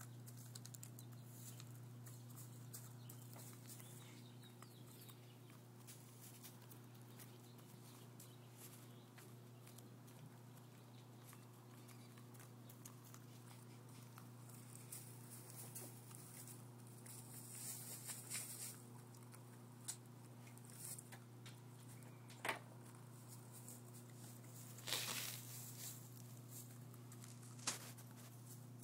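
Hens pecking at scratch grain in straw: faint scattered taps and rustling, with a few sharper clicks near the end, over a steady low hum.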